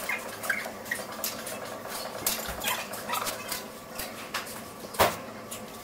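Metal clinking and knocking from a gym weight machine as its weight stack moves during leg curl reps, with one louder knock about five seconds in.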